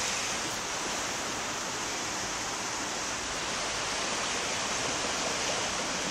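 Swollen river in flood rushing past close by: a steady, even rush of fast-moving water.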